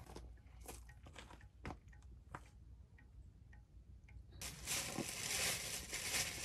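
A few faint scattered ticks, then about four seconds in a steady hiss of liquid being poured from a kettle into a tumbler.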